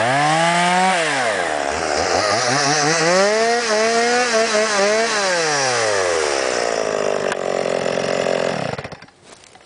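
Stihl MS 170 two-stroke chainsaw, a new saw still being broken in, revved up twice: the first rev drops back quickly; on the second the pitch holds high and wavers for a couple of seconds before falling back to idle. The engine stops about nine seconds in.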